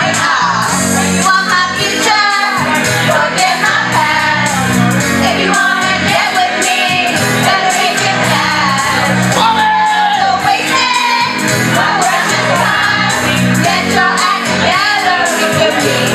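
A group of women singing together into microphones over a karaoke backing track with a steady drum beat.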